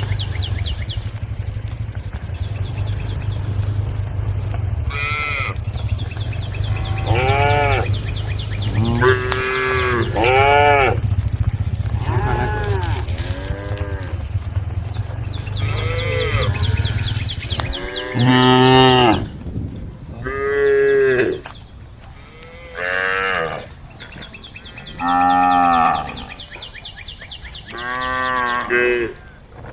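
A herd of cows mooing, one call after another, about a dozen long moos across the stretch. A steady low hum sits under the first two-thirds and stops about eighteen seconds in, leaving the later moos clearer.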